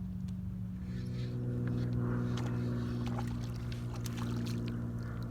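An engine drones at a steady, unchanging pitch, growing a little louder about a second in, with a few small clicks over it.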